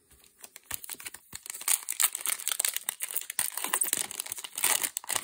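Foil booster pack wrapper (Magic: The Gathering Double Masters 2022 draft booster) crinkling and crackling as it is torn open by hand, a few light clicks at first, then dense crinkling from about two seconds in.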